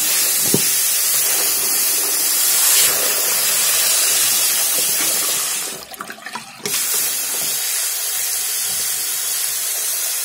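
Water running hard from a tap, a steady rushing hiss that breaks off for under a second about six seconds in and then runs on.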